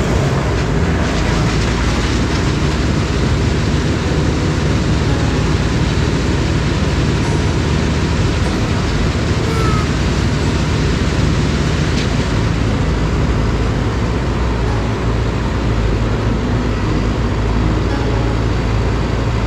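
A large engine running steadily under load with a continuous mechanical rumble and hiss, typical of heavy machinery working.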